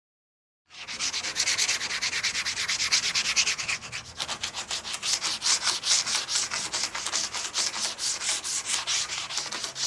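Hand sanding of an MDF speaker cabinet: sandpaper rubbed in quick back-and-forth strokes over the board surface, several scratchy strokes a second. It starts a little under a second in and goes on steadily, with a brief pause about four seconds in.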